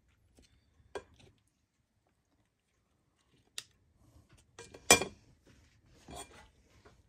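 Plates and cutlery being handled on a kitchen counter: a few scattered clicks and clinks, with a cluster of clatter and one hard clack about five seconds in.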